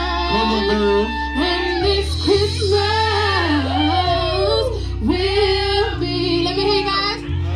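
A woman singing live into a microphone, her voice sliding up and down between held notes, over sustained low backing chords that change every couple of seconds.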